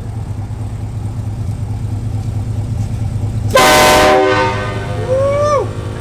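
Truck-mounted Air Horns of Texas train horn blasting once, about three and a half seconds in: a short, very loud chord of several notes lasting about half a second, over a steady low hum. A rising-and-falling whoop follows a second later.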